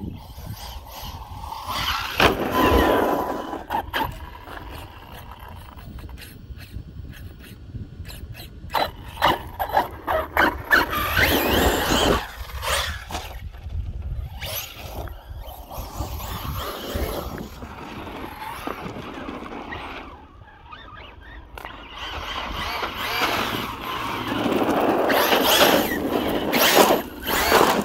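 Arrma Notorious RC truck on 6S being driven hard, its brushless motor whining up and down in pitch through repeated bursts of throttle, loudest about a third of the way in and again near the end.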